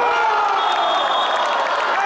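Spectators cheering and yelling for a goal, with long drawn-out shouts over one another. A thin, steady high tone sounds for about a second, starting about half a second in.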